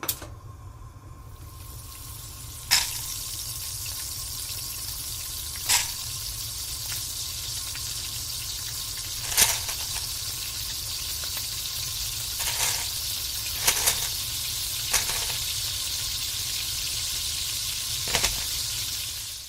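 Food frying in hot oil: a steady high sizzling hiss that builds up over the first couple of seconds, with a sharp pop or click every few seconds, then cuts off suddenly at the end.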